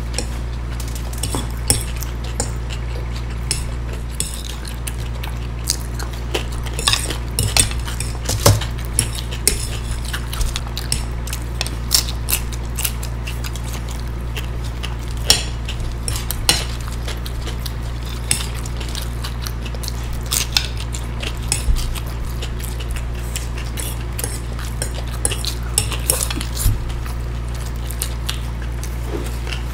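Metal forks clicking and scraping on plates in irregular short clinks, mixed with close-miked chewing, over a steady low hum.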